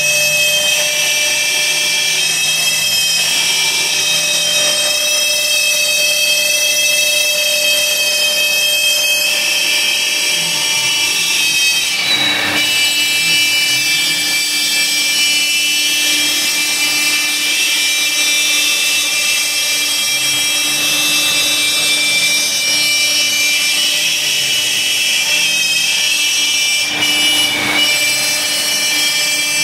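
CNC router spindle running with a steady high whine as its bit cuts ½-inch plywood. Underneath, a low motor hum steps up and down in pitch as the gantry moves the head along the cut. There are brief louder moments about twelve seconds in and again near the end.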